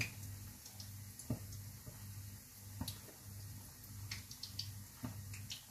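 Faint scattered taps and clicks from a bread roll being handled over a plastic lunch box, over a low steady hum.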